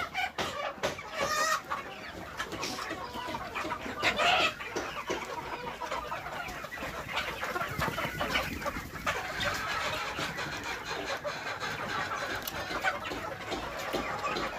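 A large flock of desi (local-breed) chickens, mostly hens with some roosters, clucking continuously, many overlapping calls at once, with one louder call about four seconds in.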